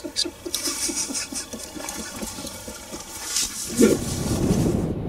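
A man laughing in a quick run of chuckles. About four seconds in comes a loud thump, then a steady low rumble.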